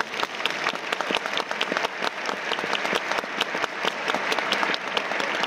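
Crowd applauding: many separate hand claps standing out over a steady wash of clapping.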